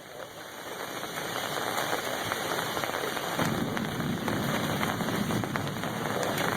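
Torrential thunderstorm rain pouring down, a dense rushing hiss dotted with many sharp ticks of drops striking. It grows louder over the first couple of seconds, and a deeper rushing joins about three and a half seconds in.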